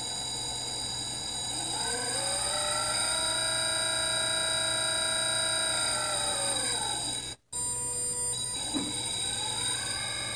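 Brushless DC motor on a PWM commutation drive: a steady high-pitched electronic whine, with the motor's own pitched whine rising as it speeds up about two seconds in, holding, then falling away as it slows around six to seven seconds. After a brief dropout, the pitch dips very low, nearly to a stop, just before nine seconds and climbs again as the motor speeds back up.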